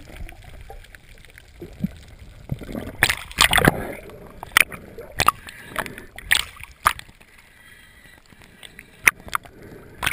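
Water sloshing and splashing around a GoPro in its waterproof housing near the surface, heard muffled through the housing, with irregular sharp pops and knocks: a cluster about three seconds in, then single ones every second or so.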